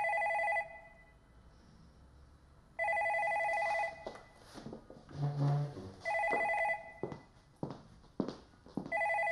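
Telephone ringing in warbling bursts about a second long, roughly every three seconds, four rings in all. Between the rings come a short scrape and several light taps like footsteps as someone gets up and walks.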